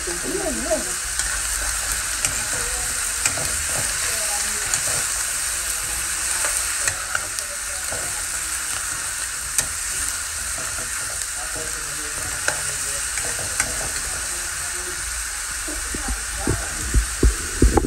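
Squash, string beans and crab sizzling in a metal wok over a gas burner, while a metal spatula stirs them and clicks and scrapes against the pan. A few low knocks come near the end.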